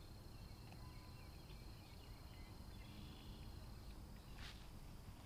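Faint outdoor ambience: quiet, distant bird chirps and a steady high thin whine that stops about four seconds in, then a brief swish shortly after.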